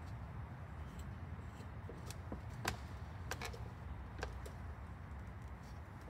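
A few sharp metallic clicks and taps as the threaded lock knob on a hydraulic aircraft jack is turned by hand, over a steady low hangar rumble.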